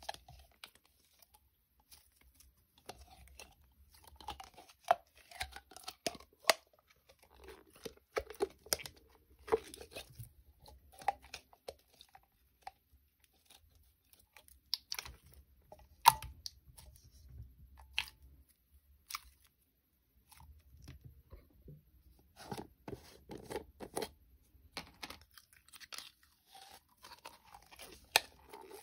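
Slime being squished and worked by hand: irregular squelching and crackling with sharp pops, the loudest about halfway through, and short pauses between bouts.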